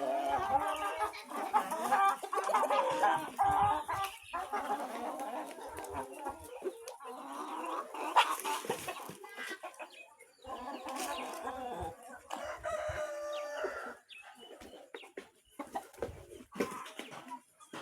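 A flock of chickens clucking and calling, with a rooster crowing among them. The calls overlap thickly in the first few seconds, then come more sparsely.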